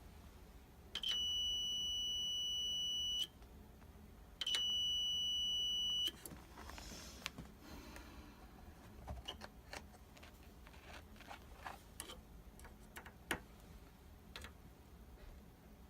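Digital multimeter's continuity beeper sounding twice, a steady high beep of about two seconds and then one of about a second and a half. The beep signals a closed circuit across the probed water-heater thermostat contacts. Small clicks and taps from the probes follow.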